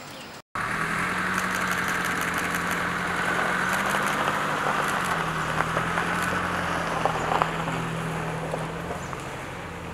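A vehicle engine idling steadily after a brief gap, with a few light clicks about seven seconds in.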